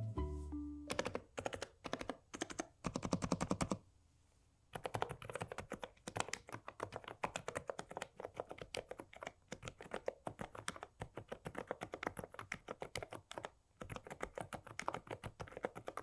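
Typing on an Aula F99 mechanical keyboard fitted with Feather silent switches: quick runs of soft keystrokes, with a brief pause about four seconds in.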